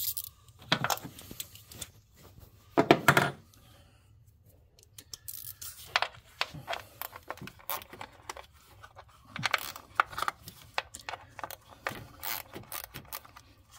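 Metal hand tools clinking and clicking on engine parts as a wrench works bolts loose: irregular sharp clicks, with the loudest clatter about three seconds in.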